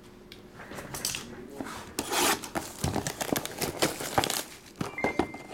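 Plastic shrink-wrap being torn and crinkled off a sealed trading-card box, then the cardboard box being pried open by hand. A rapid, irregular run of crackling and tearing noises starts about a second in.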